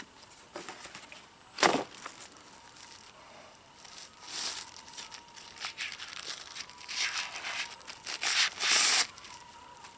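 Flashlight packaging being handled and unwrapped: rustling and crinkling in several bursts, loudest shortly before the end, with a single sharp knock a little under two seconds in.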